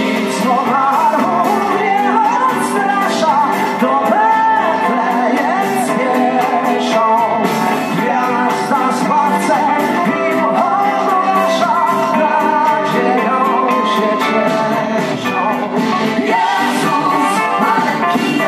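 Live folk-pop band playing a Christmas carol arrangement, with a lead vocal over violins, electric guitars and a drum kit, heard through a large hall.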